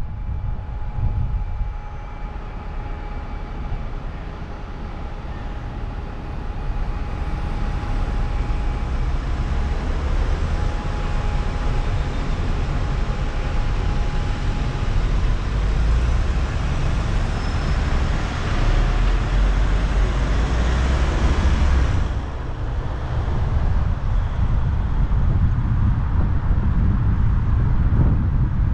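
Car driving through city traffic: steady road noise with a heavy low rumble. A brighter rush builds for several seconds and then drops away suddenly about three quarters of the way through.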